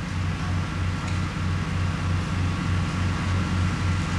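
Heavy construction machinery running steadily in a tunnelling shaft: a low droning hum that throbs evenly about five times a second.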